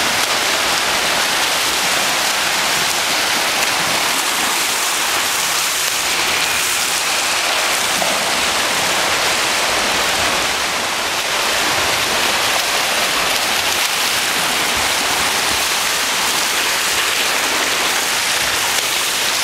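Steady rushing splash of freestyle swimmers kicking and stroking through pool water.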